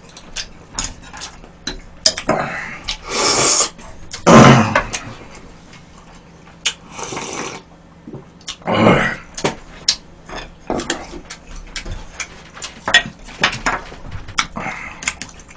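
Close-miked eating sounds: a series of loud, wet slurps and sips from a bowl of broth, the loudest about four seconds in, between many small clicks and smacks of chewing and of dishes.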